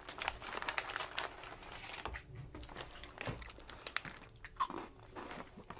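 Plastic snack wrapper crinkling, then crunchy ube-filled crackers being bitten and chewed, with scattered sharp crunches.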